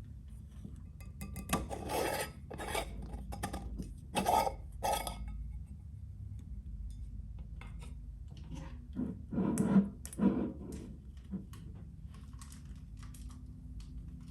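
Wood-wick candle crackling: irregular pops and short rasping crackles, the loudest cluster about two-thirds of the way through, over a steady low hum.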